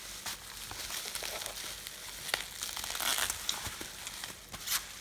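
Packaging crinkling and rustling as a parcel is handled and opened, with irregular crackles and a louder rustle about three seconds in.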